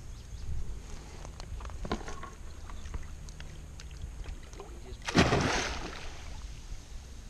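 A hooked grass carp thrashing at the surface, with one big, sudden splash about five seconds in that fades over about a second. A few fainter knocks and splashes come before it.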